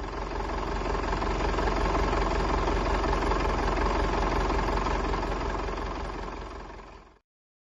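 Farmall Super MD's four-cylinder diesel engine running steadily with a rapid even beat, fading out and cutting off near the end.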